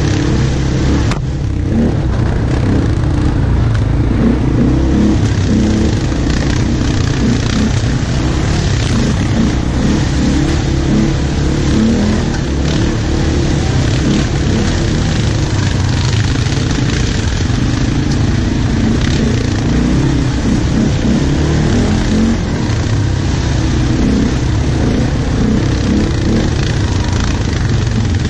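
ATV engines running steadily as the quads ride in a line along a rough dirt trail, the nearest engine being the filming rider's own.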